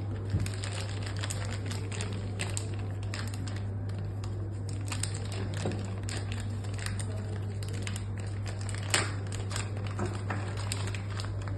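Small metal lock parts and their packaging being handled: scattered light clicks and knocks with some crinkling, the sharpest click about nine seconds in, over a steady low hum.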